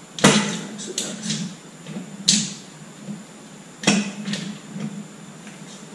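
Sharp clicks and light knocks from a steel tape measure being handled against the metal suspension link as a length is taken: three louder knocks spread over a few seconds, with lighter clicks between.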